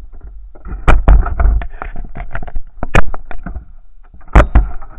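Onboard sound of an RC boat on the water: irregular knocks and slaps with a low rumble of buffeting on the hull-mounted camera. Three sharp knocks stand out, about a second in, at three seconds and near the end.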